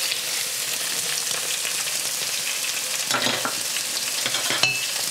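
Pork ribs sizzling in oil as they brown in a frying pan, a steady hiss, with a utensil knocking and scraping as the pieces are turned about three seconds in. A short clink with a brief ring comes near the end.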